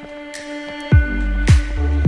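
Electronic background music: held notes, then a deep bass and a steady kick-drum beat come in about a second in, a kick roughly every half second.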